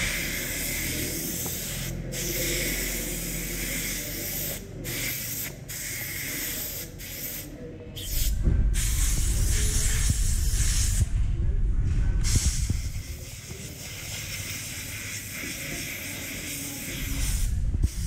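Compressed-air blow gun hissing in spurts with short breaks between them as it blows dust out of a pleated paper engine air filter from the inside. The blast grows louder and heavier about halfway through.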